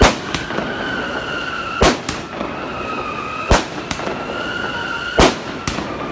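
A 60-shot multi-shot firework cake firing shot after shot: four loud bangs about a second and a half apart, each followed by a smaller crack. A high whistling tone holds between the bangs, dropping slightly in pitch.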